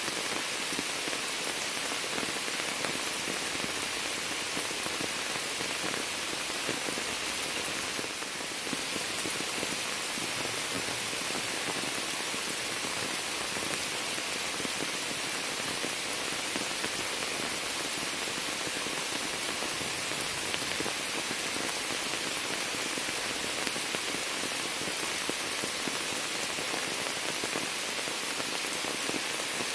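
Steady rain falling onto standing water and shrub leaves, a dense, even hiss of countless drops striking the water's surface.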